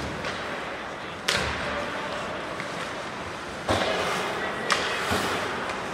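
Ice hockey play in an arena: four sharp cracks of puck, sticks or players hitting the boards, one about a second in and three close together in the second half, over steady crowd chatter.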